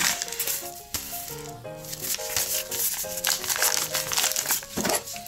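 Background music with short melodic notes, over the crinkling of a paper mailer envelope being handled and opened, heaviest in the second half.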